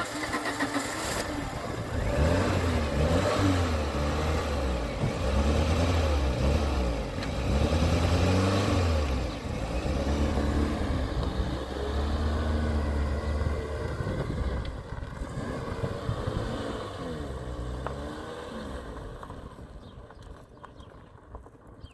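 Motor vehicle engine driving, its pitch rising and falling again and again as it speeds up and changes gear, then fading away over the last few seconds as it moves off.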